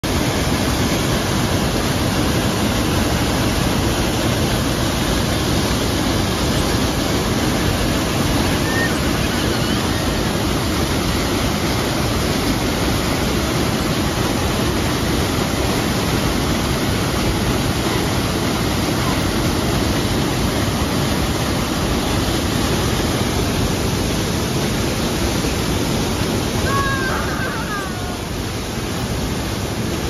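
A waterfall heard at close range, water pouring onto rocks and churning in the pool below, a steady loud rush that dips slightly near the end. A few brief faint chirps sound over it near the end.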